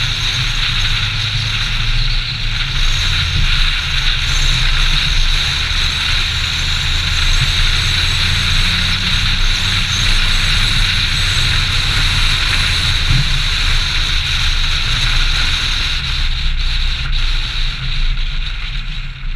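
Volvo 740/940-series car driving on a wet road: its engine running steadily under a constant rush of wind and tyre hiss.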